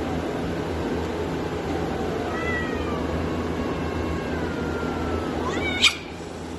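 A cat meowing: one long drawn-out call starting about two seconds in and falling slightly in pitch, then a short rising cry that ends in a sharp click near the end, over a steady low background hum.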